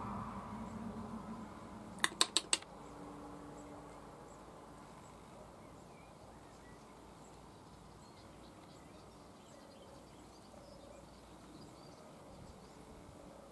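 Quiet pond-side ambience with faint scattered bird calls. About two seconds in, four sharp clicks come in quick succession, the loudest thing heard, after a noise fades out over the opening seconds.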